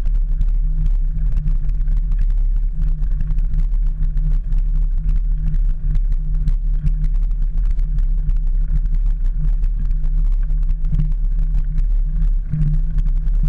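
Bicycle ridden fast over a rough lane, heard through a handlebar-mounted camera: a steady low rumble with frequent small clicks and rattles.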